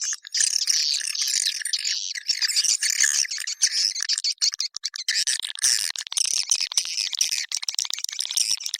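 Swiftlet lure-call recording (the 'China Kalbar' calling sound): a dense, continuous chorus of high twittering chirps and rapid clicks from edible-nest swiftlets. About five seconds in, a buzzier run of fast clicks joins in, lower than the chirping.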